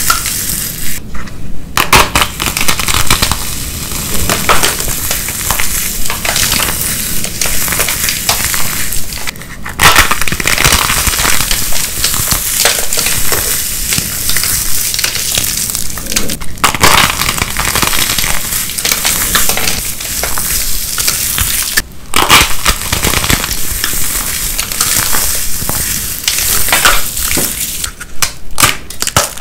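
Glitter-coated soap cubes crushed and squeezed in the hands: a continuous dense crunching and crackling, broken by short pauses every several seconds.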